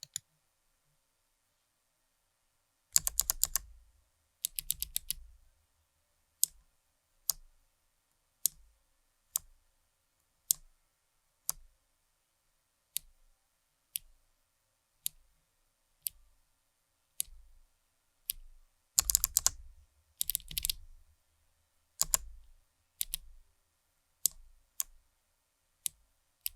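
Keys of a mechanical keyboard fitted with NovelKeys x Kailh Box Pink clicky switches being typed on, each press giving a sharp click. Two short rapid runs of keystrokes come a few seconds in, then single presses about once a second, another rapid run about two-thirds of the way through, and single presses again.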